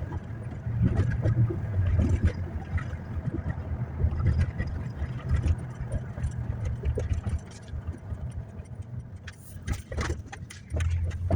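Car cabin noise while driving: a steady low rumble of engine and road, with scattered faint clicks.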